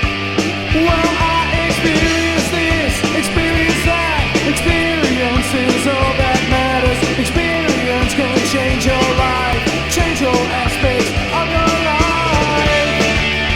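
A rock band recording plays at full tilt, with a driving drum beat under sustained, sliding melodic lines.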